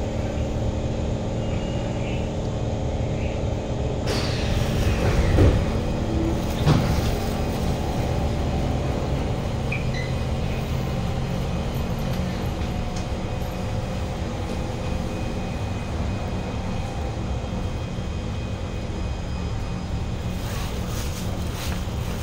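Inside a Kawasaki C151 MRT car standing at a station, the passenger doors open about four seconds in: a hiss and rush of sound, then two knocks about a second apart as the door leaves reach their stops. Behind it runs the train's steady hum, several level tones from its equipment and ventilation.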